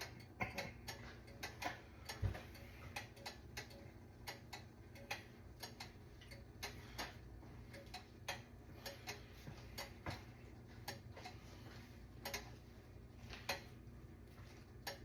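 Faint, irregular ticks and clicks, a few a second, over a low steady hum.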